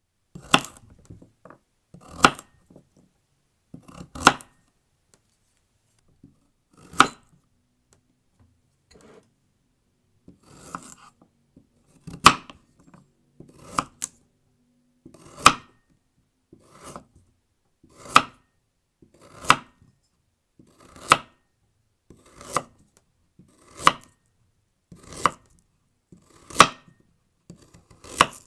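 A knife chopping a carrot on a cutting board: single crisp chops, each a short crunch through the carrot ending in a sharp knock on the board. They come a few seconds apart at first, then settle into an even pace of roughly one chop every second and a half.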